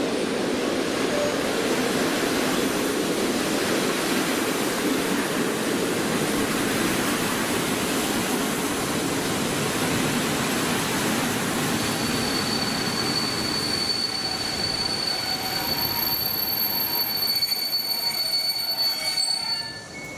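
PKP Intercity passenger coaches running past along a station platform, a steady rumble of wheels on rail. About twelve seconds in a steady high-pitched brake squeal sets in and the rumble fades as the train slows almost to a stop.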